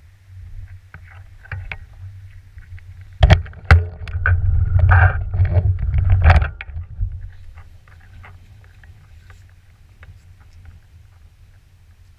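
Beaster BS11 electric scooter with the camera mounted on it, rolling briefly over stone paving. Two sharp knocks come about three seconds in, then a few seconds of loud rumble and rattle that dies away to a low rumble.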